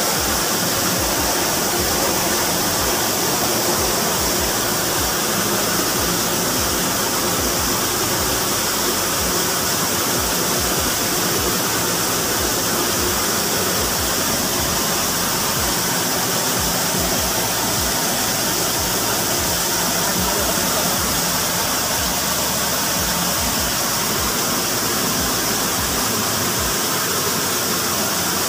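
Pressurised water rushing through the cistern's open float-valve inlet, with a fine spray hissing from a small pipe fitting on the valve: a steady, even rushing hiss that does not change.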